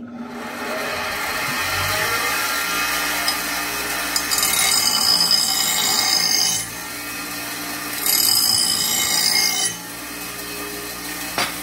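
Bench grinder starting up and running steadily. Twice, for about two seconds each, a steel mower blade is pressed against the grinding wheel, giving a loud high grinding hiss, as metal is shaved off one side of the blade to balance it.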